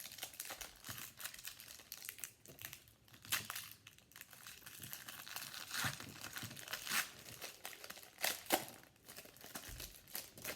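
A foil trading-card pack wrapper being torn open and crinkled, a steady crackling with several sharper, louder crackles.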